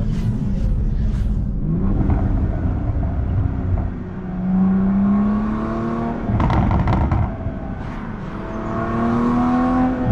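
Toyota Supra MK5's turbocharged 3.0-litre inline-six, fitted with a downpipe and stock exhaust, running steadily and then accelerating hard: the engine note rises, breaks with a short crackle at an upshift about six seconds in, and rises again toward another shift at the end.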